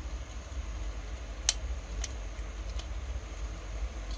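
A few light metallic clicks from a ring-fitted piston being pushed and turned into a Stihl 070 chainsaw cylinder: a sharp one about one and a half seconds in, another half a second later, then fainter ones. A low steady hum runs underneath.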